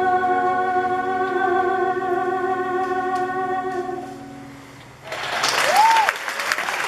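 A held final chord on keyboard accompaniment fades out over about five seconds, then the audience breaks into applause, with one whistle near the end.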